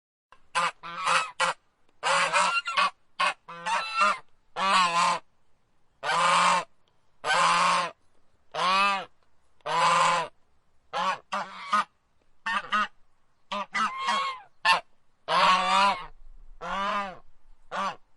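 Domestic geese honking: a long string of calls in quick succession, some short and clipped, some drawn out.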